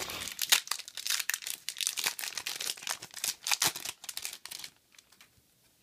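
Foil booster-pack wrapper crinkling and tearing as it is opened by hand: a dense run of crackles that stops near the end.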